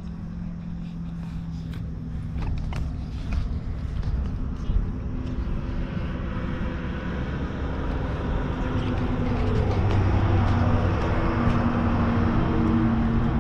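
Road traffic passing on a highway: engine hum and tyre noise of passing vehicles that grows louder from about halfway through and peaks near the end. A few light clicks sound in the first few seconds.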